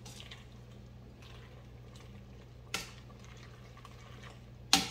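Egg noodles boiling in broth in a big stockpot while a metal utensil stirs them: soft bubbling and stirring over a steady low hum. There is a light tap about halfway through, and a sharp clink of the utensil against the pot near the end.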